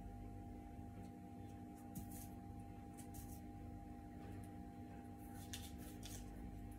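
Faint soft rubbing and swishing of hands pinching and pleating soft baozi dough around its filling, a few brief strokes over a steady low electrical hum.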